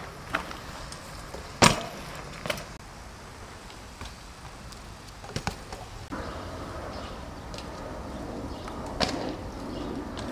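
Sharp knocks and clacks of riders' trick landings and grinds on concrete ledges and pavement, a few seconds apart, the loudest about two seconds in and a quick double knock about halfway, over steady background noise.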